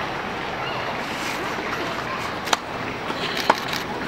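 Tennis ball struck sharply twice, about a second apart, with a few lighter knocks between them, during a practice rally. Under it runs a steady outdoor hiss.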